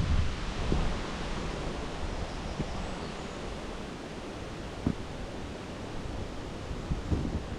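Wind buffeting the microphone, easing after about a second into a steady outdoor rushing hiss, with a few soft knocks.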